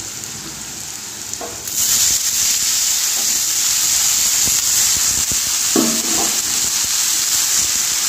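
Hot oil sizzling in a kadai. About two seconds in, a load of freshly washed red amaranth leaves goes into the pan and the sizzle turns much louder, hissing steadily as the leaves fry.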